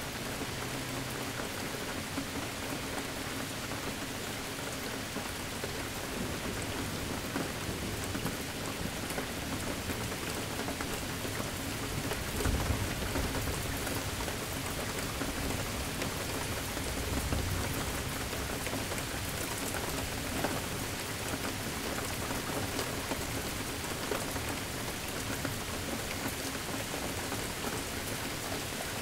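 Steady rain falling in a thunderstorm, with two low rumbles of thunder swelling up about twelve and seventeen seconds in.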